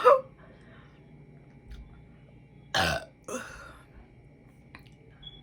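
A woman belching, brought up by gulped carbonated soda: a loud burp right at the start, then two more close together about three seconds in.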